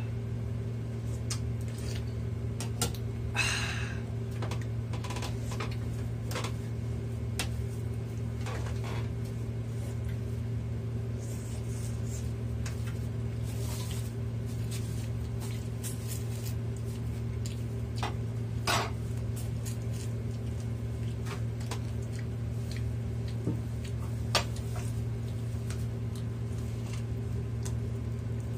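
Eating sounds over a steady low electrical hum: scattered clicks and clinks of spoons on bowls, with a few short slurps of soup, the longest about three seconds in.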